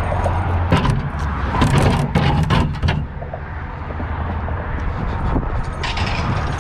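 Steady low rumble of vehicles, with a cluster of knocks and clatter about one to three seconds in and a few more clicks near the end.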